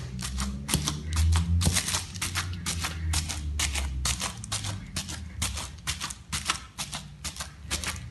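A plastic-wrapped pestle pounds steamed glutinous rice in an enamel bowl, striking in a steady rhythm of several soft thuds a second. The rice is being mashed smooth and sticky.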